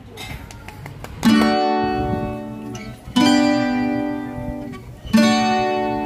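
Background music: three strummed acoustic guitar chords about two seconds apart, each left to ring out and fade.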